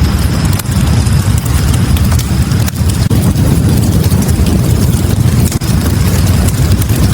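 Log fire burning in a fireplace: a loud, steady low rumble of flames with scattered small crackles.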